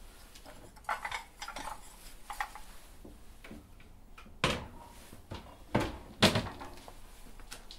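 Stacked china tea bowls clink as they are lifted from a cupboard shelf. Then come three sharp knocks as the glass-fronted wooden cupboard doors are pushed shut, the last the loudest.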